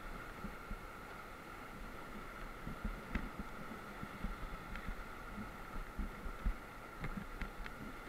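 Whitewater rapids rushing steadily around an inflatable raft, with irregular dull low thumps of water striking the raft and a few sharp ticks.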